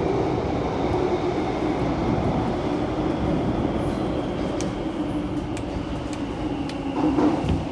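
Inside a Kawasaki–CRRC Qingdao Sifang T251 metro train running into a station: a steady rumble of wheels and running gear with a low hum.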